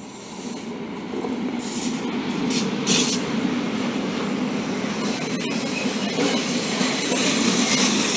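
Class 1216 Taurus electric locomotive hauling a car-carrier freight train past, its wheels rolling over the rails in a steady rumble that grows louder over the first few seconds as the train nears. A few short, sharp high sounds come about two to three seconds in.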